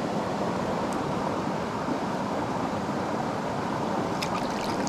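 Shallow, rocky mountain stream running over rocks: a steady, even rush of water, with a few faint clicks near the end.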